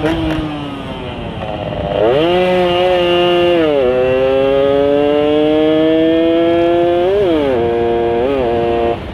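Yamaha Sigma two-stroke engine with an UMA 30 mm carburettor and frog-type intake manifold, revving hard under way. It climbs through the revs about two seconds in, drops sharply at a shift, pulls up steadily, then falls off about seven seconds in, with a short throttle blip near the end. The intake gives the deep snoring note the rider calls 'ngorok banget'.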